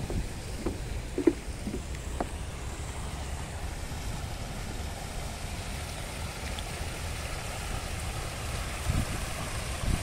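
Steady wind rumble on the microphone over a rush of water from a fountain spout falling into a pond, with a few light footsteps on a wooden boardwalk in the first two seconds or so.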